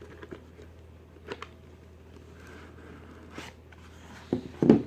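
A small cardboard box being opened by hand: scattered clicks and rustles from the lid and packaging, with a louder scrape-and-knock of handling near the end.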